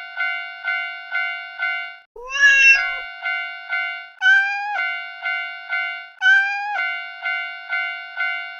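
Japanese level-crossing warning bell ringing its kan-kan strokes about twice a second, with a cartoon cat meowing three times over it, at about two, four and six seconds in; the first meow is lower than the other two.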